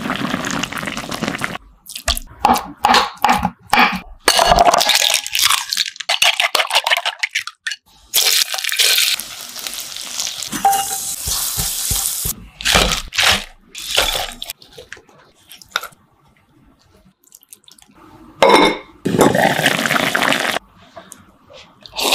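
Cooking sounds in short bursts with brief pauses: minced garlic and sliced bird's-eye chillies sizzling in oil as a spatula stirs them, and utensils knocking on pots and pans.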